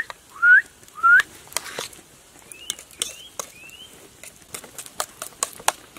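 Short rising whistled notes: three loud ones in the first second and a half, then three fainter, higher ones a couple of seconds later, over scattered sharp clicks.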